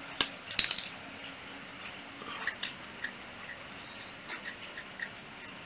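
Marker pen scratching in short strokes on tape stuck to a cordless drill, after a few sharp handling clicks in the first second.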